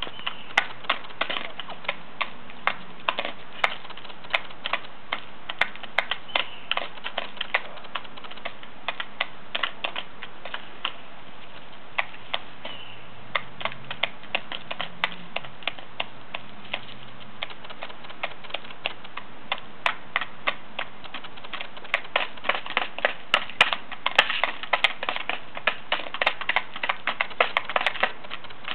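Wild turkeys pecking feed from plastic tubs: rapid, irregular clicks of beaks striking the plastic, coming thicker and louder near the end.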